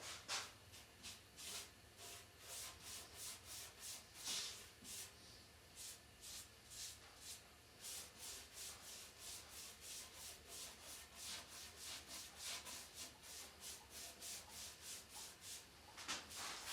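A paintbrush brushing paint onto the wooden dresser in quick, faint back-and-forth strokes, about three a second.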